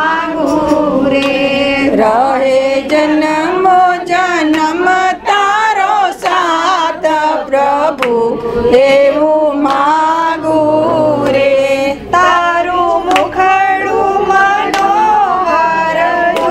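Gujarati devotional bhajan being sung, the voices carrying a wavering melody line without a break.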